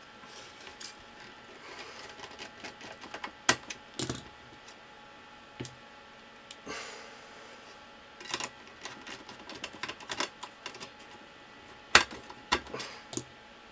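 Irregular clicks, taps and a few sharper knocks of small hard parts and tools being handled on a workbench, with a faint steady hum underneath.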